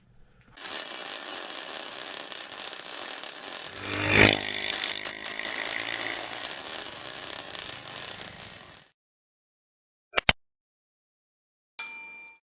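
Tools working on the minibike's handlebar riser mounts: a long stretch of scraping, rattling mechanical noise with a loud clank about four seconds in, then a short metallic ring near the end.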